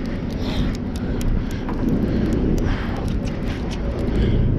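Steady low rumble of the fishing boat's engine, with wind on the microphone and scattered faint clicks while the reel is cranked in.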